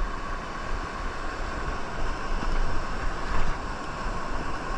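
Big sea waves surging and washing over the rocky shore, with wind rumbling on the microphone.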